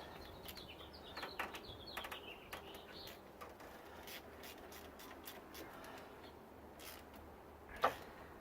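Faint, scattered clicks and taps of hand tools on engine bolts being tightened, with one sharper knock near the end. A bird chirps faintly in the background for the first few seconds.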